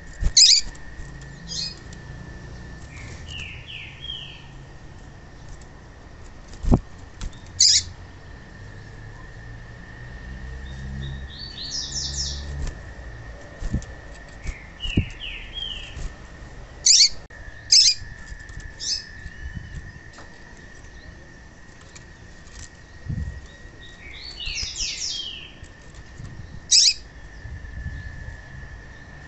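Female yellow-bellied seedeater (papa-capim) calling: short sharp chirps and small clusters of quick descending notes, repeated every few seconds. Wing flutters and a soft thump come from the caged bird hopping between perches, and a steady high tone runs underneath.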